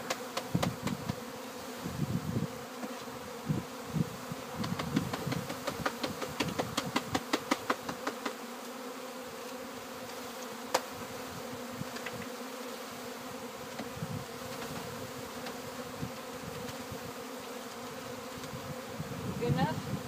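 Honeybees buzzing in a steady hum as a package colony is shaken out into a hive body. A quick run of knocks in the first half, the wooden package being tapped to dislodge the bees, with one more sharp knock about halfway through.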